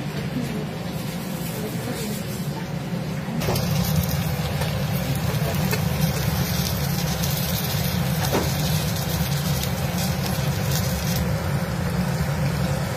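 Stuffed brinjals frying in a kadai, a steady sizzle over a low hum that gets clearly louder about three seconds in, with a wooden spatula scraping the pan now and then.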